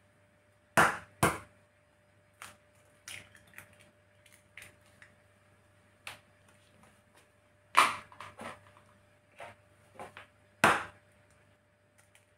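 Raw eggs tapped against a glass bowl and broken into it: a series of sharp knocks and clicks, the loudest about a second in and again near 8 and 11 seconds, with lighter clicks of shell and egg carton between them. A faint steady hum runs underneath.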